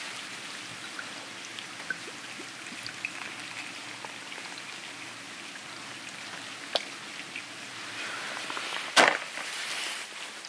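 Beer poured from a glass bottle into a metal camping mug, running and foaming, with a single sharp knock about nine seconds in.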